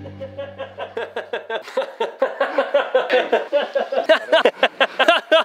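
Laughter in a rapid, even run of short 'ha-ha-ha' pulses, about five a second, growing louder as it goes.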